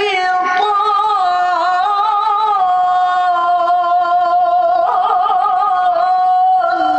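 A male Quran reciter chanting in melodic tilawah style, holding one long, high phrase with ornamental wavering turns about five seconds in. The phrase breaks off briefly near the end.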